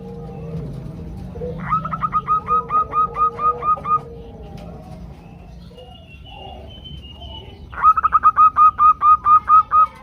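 Female zebra doves (perkutut) calling: two runs of quick, evenly repeated cooing notes, about five a second, each lasting roughly two seconds. They come about two seconds in and again near the end. Fainter high whistled notes sound between the runs.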